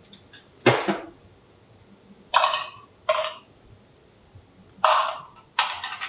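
Nitrile gloves being pulled on: five short rustling snaps, the first about a second in, the rest in two pairs.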